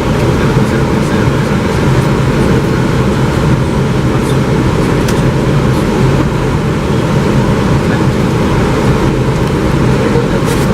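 Steady rushing airflow and engine hum on the flight deck of an Airbus A320 on approach, with a few faint ticks.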